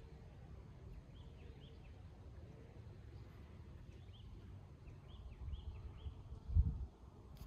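Faint outdoor ambience: a small bird giving short chirps in several little groups over a steady low rumble, with a brief louder low rumble about six and a half seconds in.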